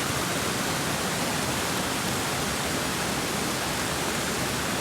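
Steady rush of falling water from a waterfall or fast stream, an even hiss with no breaks.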